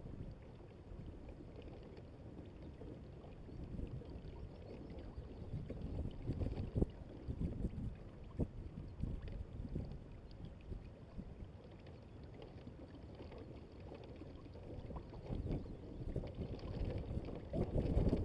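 Wind and water noise aboard a Hobie Adventure Island sailing kayak under way: a low, uneven rushing and lapping that swells in irregular gusts and grows louder near the end.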